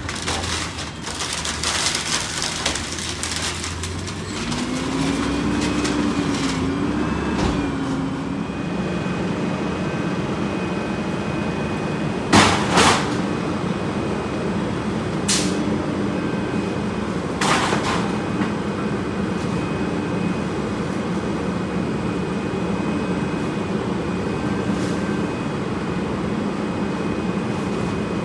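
Rear-loader garbage truck running, its engine note rising and falling about five to eight seconds in over a steady high whine. Three short, sharp hisses come about twelve, fifteen and seventeen seconds in, the first the loudest.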